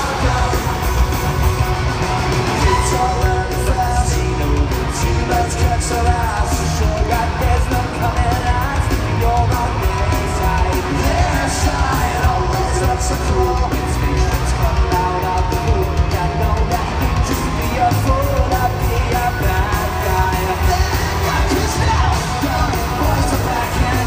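Live pop-punk rock band playing loud and without a break: drums, electric guitars, bass and sung vocals, with yelling over the top, heard from the stands of an arena.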